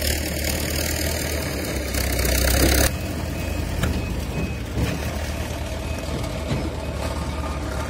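Diesel engine of a backhoe loader running, with a steady low hum. It grows louder about two seconds in, drops off abruptly just before three seconds, then runs on more quietly.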